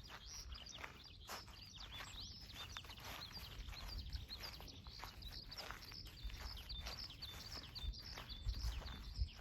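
Small birds chirping in many quick short calls, over a low rumble of wind, with occasional short clicks or rustles.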